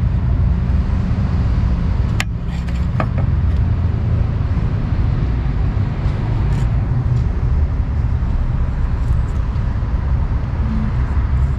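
Steady low rumble like a running engine, with two sharp clicks about two and three seconds in.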